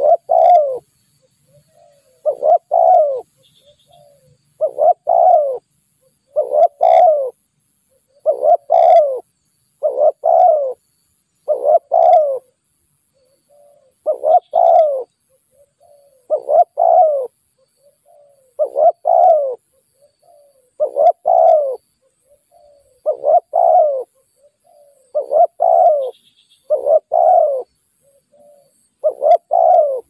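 Spotted dove cooing: a short phrase of two or three deep coos, repeated about every two seconds throughout.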